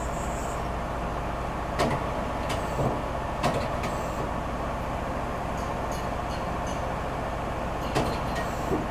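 Daewoo Puma 300 CNC turning center running with a steady mechanical hum, broken by a few short sharp clicks about two, three and a half, and eight seconds in.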